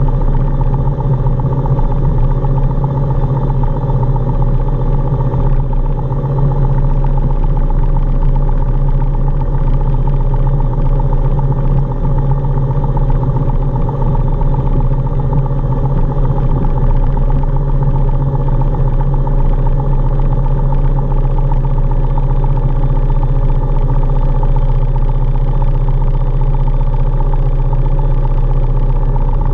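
Single-engine piston airplane's engine and propeller running steadily at low power while taxiing, heard from inside the cabin.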